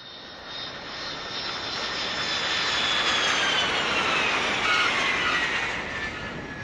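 Aircraft passing overhead: a rush of noise that builds to a peak midway and fades, with a high whine sliding down in pitch as it goes by.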